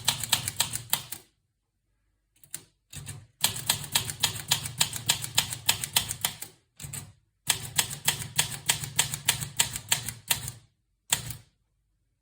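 Olivetti Lettera 32 portable typewriter being typed on: runs of sharp key strikes, about six a second, broken by short pauses, with the longest runs lasting around three seconds.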